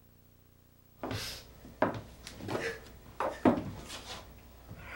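About a second of dead silence, then a scattered run of about seven sharp knocks and thuds over some four seconds, with rustling between them.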